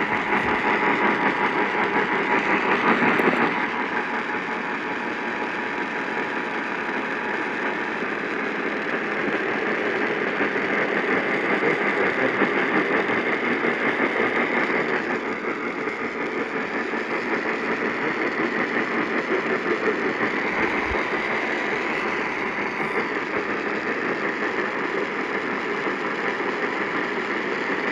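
Radio static: a steady, dense hiss from a weather radio receiver as the broadcast signal drops out, with a faint steady whistle for about the first eight seconds.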